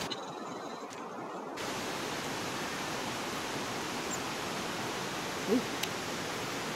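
Steady, even rushing background noise outdoors, with a couple of faint short chirps about five and a half seconds in.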